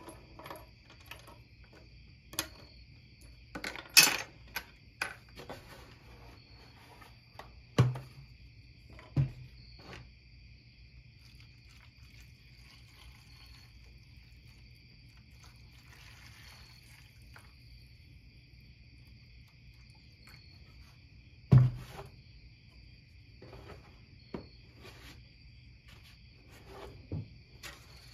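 Small rusty bolts and nuts and a flat iron blade clicking and knocking as they are set into a plastic tray, with scattered sharp knocks in the first ten seconds. A quiet stretch follows while liquid is poured over the parts, then another louder knock and a few lighter ones near the end as the tray is covered with a plastic lid.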